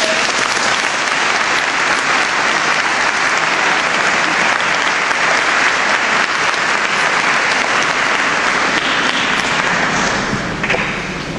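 Audience applauding: a few first claps swell into dense, steady clapping that dies away near the end.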